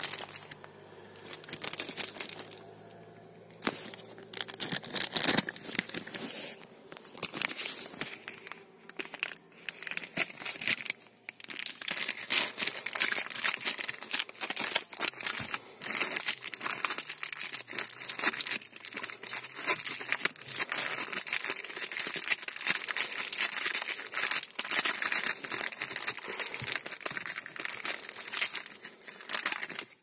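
Clear plastic packaging crinkling and tearing as it is opened by hand. It comes in fits and starts for the first ten seconds or so, then goes on almost without a break.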